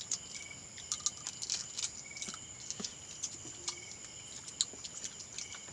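Night insects, such as crickets, giving a steady high trill, with scattered light clicks and a few short high chirps.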